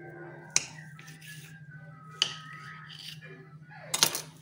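Kitchen knife blade knocking sharply on a granite countertop three times as it cuts through a log of soft dough, over quiet background music.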